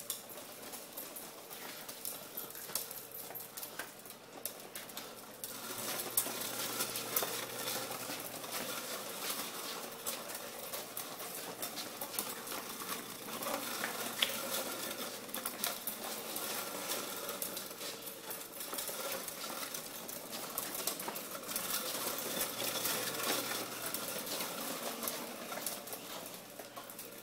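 Toy wagon's wheels rolling and rattling across a kitchen floor, a continuous clatter of small clicks that grows louder about six seconds in, over a faint steady hum.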